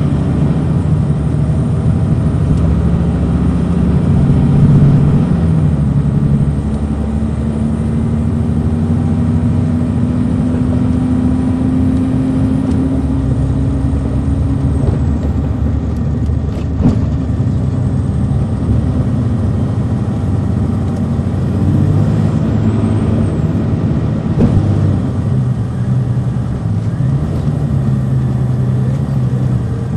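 On-board sound of a 2002 MCI D4000 coach's Detroit Diesel Series 60 engine pulling the bus along. The engine note climbs steadily for several seconds, then falls away about halfway through. A sharp click comes twice later on.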